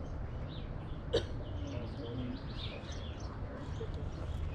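Faint, scattered chirps of small birds over a steady low rumble, with one sharp click about a second in.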